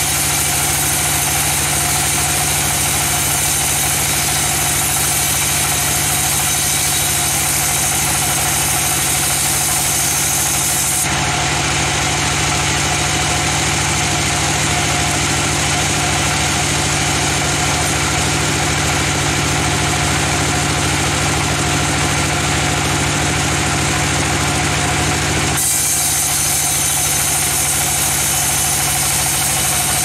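Band sawmill running steadily with a constant machine hum, its blade cutting lengthwise through a young teak log. The high hiss of the cut drops away about eleven seconds in and comes back near the end.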